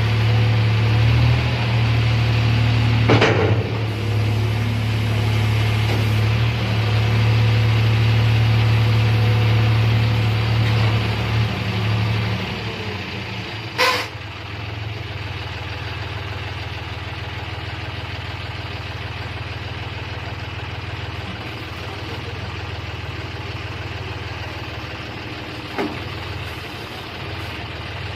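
John Deere 5310 tractor's three-cylinder diesel engine running steadily at higher revs, then dropping to a lower, quieter idle about twelve seconds in. A few sharp knocks come about 3 s in, about 14 s in (the loudest) and near the end.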